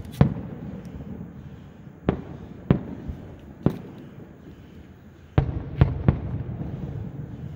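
Fireworks going off: about seven sharp bangs at uneven intervals, each followed by a short echo.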